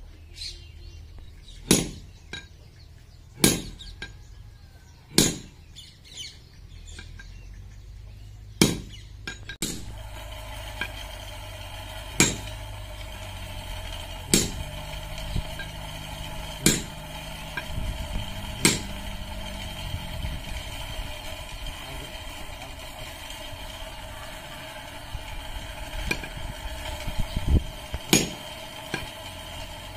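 Sledgehammer blows striking iron on a blacksmith's anvil, one sharp ringing blow every couple of seconds, with lighter, quicker taps near the end. From about a third of the way in, a steady mechanical hum runs underneath.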